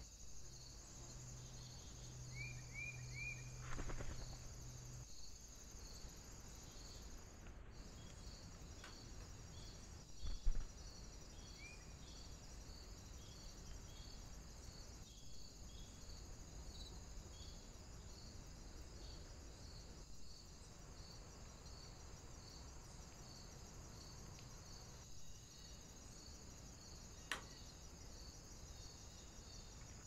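Insects chirping steadily in a faint outdoor background, a high pulse repeating at about one and a half per second over a constant high hiss. Three quick small bird chirps come early on, and there is a single sharp knock about ten seconds in.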